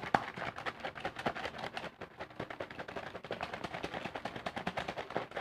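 Plastic bottle of liquid soap shaken hard by hand: a fast, continuous clatter of liquid sloshing and the bottle knocking, as the soap is whipped into foam.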